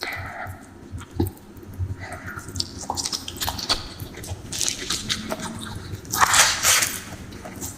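Close-miked eating of fish curry with rice: wet chewing and biting with small clicks and smacks, and a louder crunching stretch about six seconds in.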